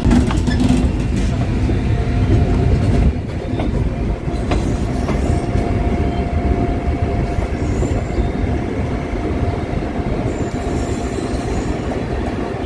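Indian Railways passenger coaches of the Chakradharpur Express rolling along the rails, heard from an open coach doorway: a steady rumble and rattle of wheels on track, with a thin steady wheel squeal for a few seconds around the middle.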